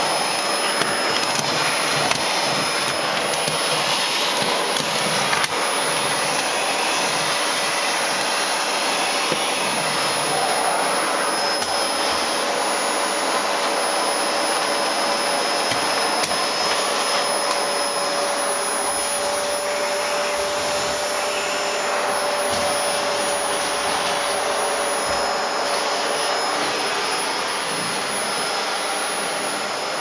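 Vacuum cleaner running steadily: a continuous rushing hiss with a thin steady whine through it.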